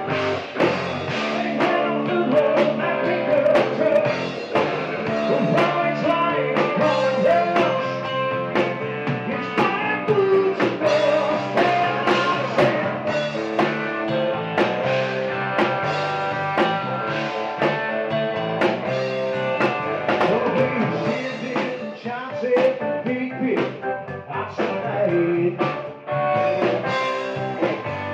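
Live rock band playing: electric guitars over a drum kit, with a steady beat.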